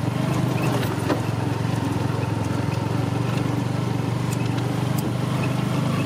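Small motorcycle engine running steadily at an even speed, with a few faint rattles.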